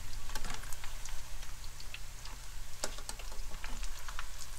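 Shrimp tempura deep-frying in a pot of hot oil: a steady crackling sizzle with many scattered pops.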